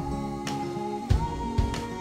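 Background music with a steady beat and held melody notes.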